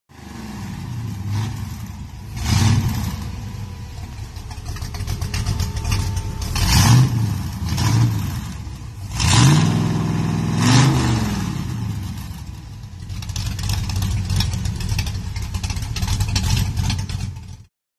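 Engine of a lifted 1970s Ford F-series pickup idling and revved again and again in short blips, each rising and falling in pitch. The biggest revs come around the middle, and the engine settles back to a lumpy idle between them.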